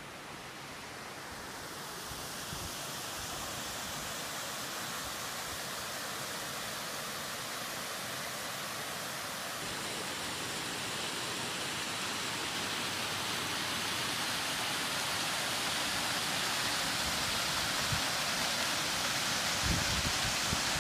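Steady rush of a creek waterfall running high with floodwater, growing steadily louder, with a few low thumps near the end.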